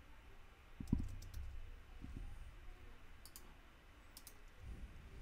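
Faint, scattered keystrokes on a computer keyboard: a few short clusters of clicks with pauses between them.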